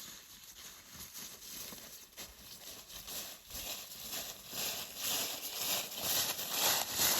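Irregular crunching and rustling in dry leaf litter, which grows louder toward the end.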